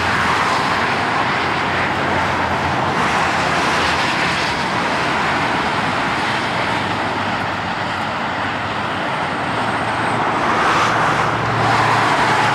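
Steady roar of freeway traffic passing close by, an even rushing noise from cars and trucks with no breaks.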